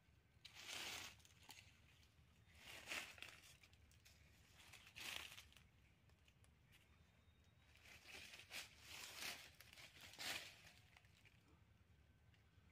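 Faint crunching and rustling of dry fallen leaves in about six short bursts, from footsteps and a net being handled on the leaf litter.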